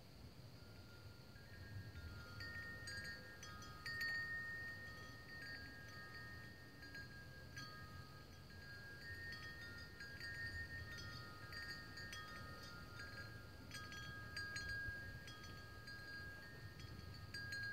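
Wind chimes ringing: several metal tones struck at irregular moments, each ringing on and overlapping the next. A steady high-pitched tone runs underneath.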